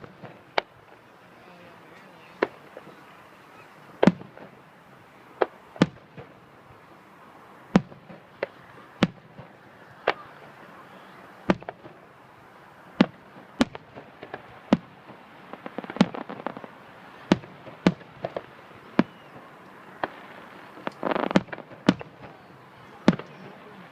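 Fireworks going off: about twenty sharp bangs at irregular intervals, with bursts of crackling about two-thirds of the way in and again near the end.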